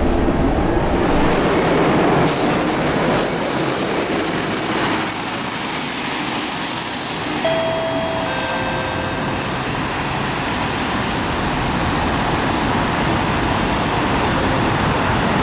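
Scania K230UB bus running under way, with a high-pitched whine over the drive noise. The whine wavers up and down, then climbs and holds steady. The uploader puts the noise down to the turbo and the hub reduction axle.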